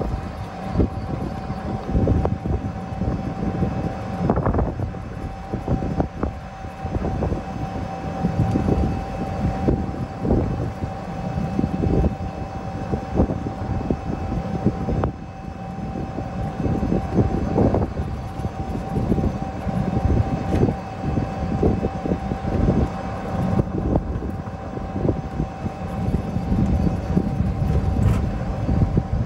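Wind buffeting the phone's microphone: a loud, uneven low rumble that keeps gusting up and down, with a faint steady high tone underneath.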